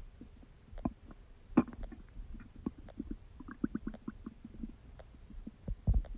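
Stomach gurgling while digesting: irregular short pops and bubbling squelches, with a run of small high squeaks in the middle and a deep low thud near the end.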